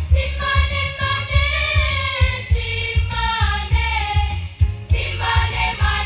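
School choir singing in parts over accompaniment with a steady low beat of about two strikes a second. The voices come in at the start and break off briefly near the end before carrying on.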